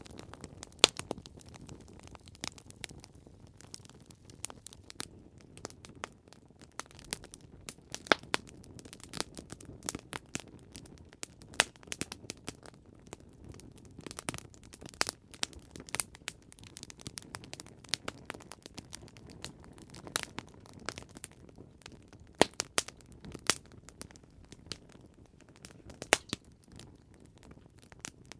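Wood campfire crackling and popping: irregular sharp snaps, some much louder than others, over a low steady rumble of burning.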